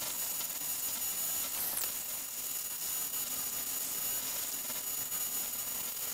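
Laguna 14X wood bandsaw running with a 1/4-inch blade while a small piece of wood is fed through tight curved cuts: a steady whir with a faint high whine.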